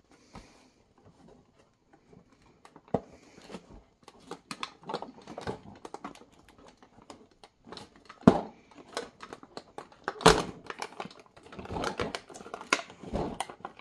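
Fingers tapping, scratching and pushing at the door of a cardboard advent calendar, a run of small clicks and scrapes with two louder knocks about eight and ten seconds in.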